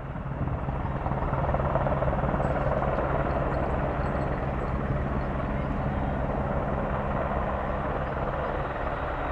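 Helicopter rotor and turbine engine running steadily as it flies close, growing louder over the first second or two, then holding.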